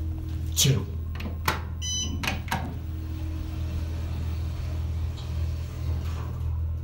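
Otis elevator car: a steady low hum, with several sharp clicks and knocks in the first three seconds and a short electronic beep about two seconds in.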